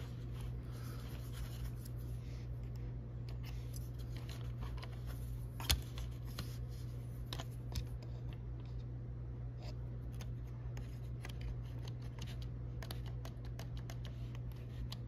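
Small plastic clicks and scrapes as an Apple IIgs keyboard's space bar and its metal stabilizer wire are worked into place with a plastic pry tool, with one sharper click about six seconds in and a run of little clicks later on. A steady low hum sits underneath.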